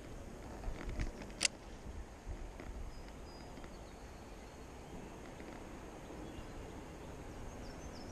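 Steady rush of a shallow creek flowing over riffles, with a few clicks in the first two seconds, the sharpest about a second and a half in, and faint high bird chirps near the end.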